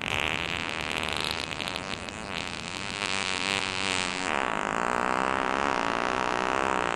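Long, drawn-out fart sound effect, its pitch wavering continuously, changing tone about four seconds in.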